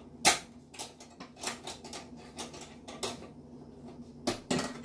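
Metal clinks and clanks from an air oven's rotisserie spit and its lifting tool knocking against the oven as the spit is lifted out, with the sharpest clank about a third of a second in and two more near the end, over a steady low hum.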